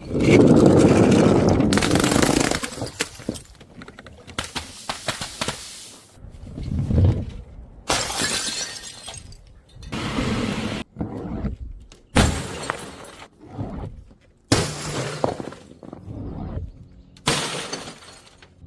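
Glass bottles smashing on stairs, one after another: about seven separate crashes, each trailing off in crunching and tinkling shards.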